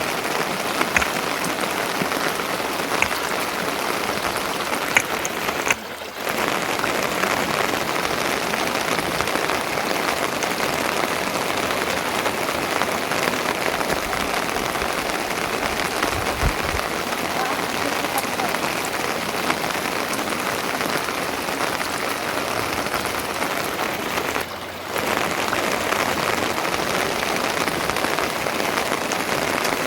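Steady rain falling, with a few sharp drip-like ticks; the sound dips briefly twice.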